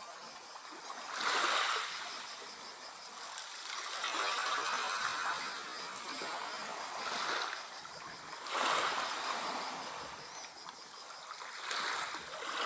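Small sea waves lapping and washing, the water noise surging every two to three seconds.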